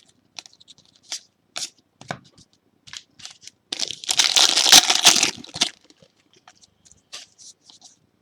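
Trading cards being handled and flicked, with short scattered clicks. About four seconds in comes a loud burst of tearing and crinkling lasting about two seconds, a foil card pack being ripped open.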